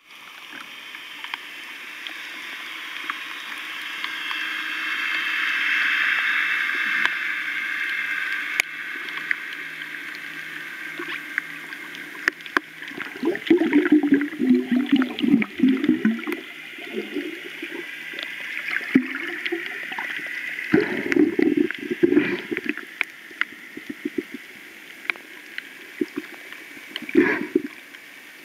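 Underwater sound picked up through an underwater camera while snorkeling: a steady hiss scattered with sharp clicks, loudest early on. Low gurgling bursts come and go about halfway through, again two-thirds in, and once near the end.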